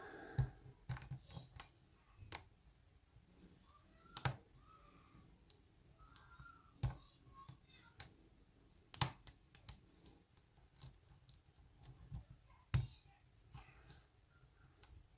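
Lock pick and tension wrench working in a Bilock oval lock: sparse, irregular small metal clicks and taps as the pins are probed.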